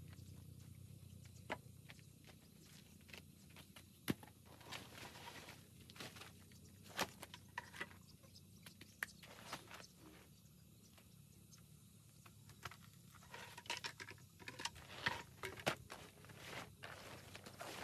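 Quiet, irregular knocks, scrapes and rustles of wooden boards being handled and set down on a dirt floor, with a tarp being handled near the end.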